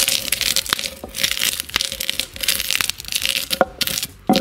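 Toasted maize kernels being ground on a batán, the Andean grinding stone: the upper stone is worked over the flat slab, crushing the grains in repeated scraping strokes with short pauses between them.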